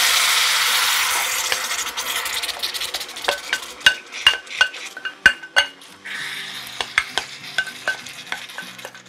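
Gochujang-marinated pork sizzling as it lands in a hot cast-iron pan, loud at first and slowly dying down. From about three seconds in, a spoon scraping out the bowl makes a run of sharp, ringing clinks.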